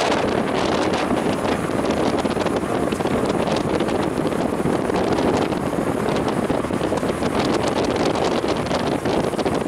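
Steady wind rushing over the microphone from a moving car, mixed with the car's engine and tyre noise.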